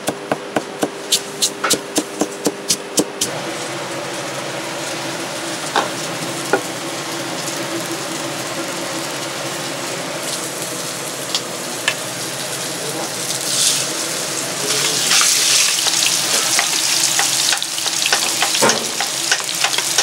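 Ground beef sizzling as it fries in a pan, stirred now and then; the sizzling gets louder about two-thirds of the way in. It opens with a quick, regular run of clicks, about three a second, that stops about three seconds in.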